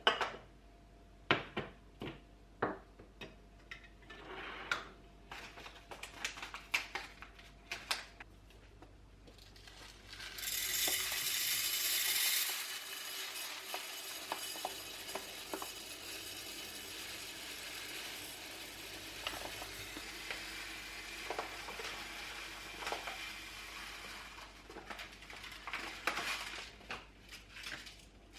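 Household cleaning sounds: sharp clicks and clinks of hard objects being handled, then a steady rushing noise that starts loud about ten seconds in and runs on more softly for about a dozen seconds, followed by a few more knocks.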